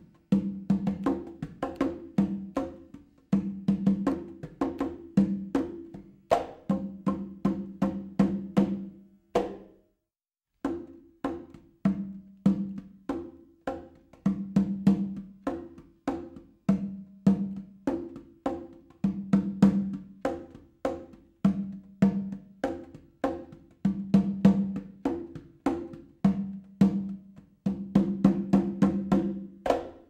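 Background music of quick, evenly spaced struck notes with a wood-block-like percussive sound, breaking off briefly about ten seconds in before carrying on.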